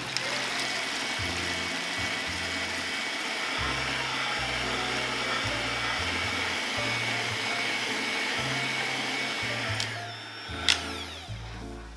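Electric hand mixer running steadily with a thin high whine as its wire beaters whip egg whites in a glass bowl to stiff peaks. The motor stops about ten seconds in, followed by one sharp click.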